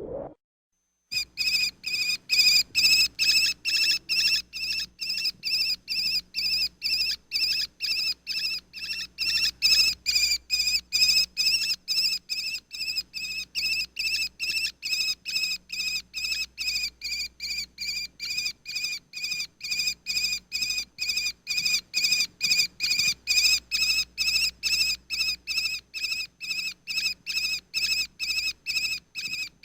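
Wren calling: a long, even series of identical high chirps, about three a second, starting a second in.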